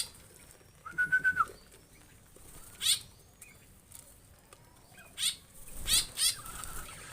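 Aviary birds giving several short, sharp high-pitched calls, with wings flapping, and a brief steady whistled note about a second in.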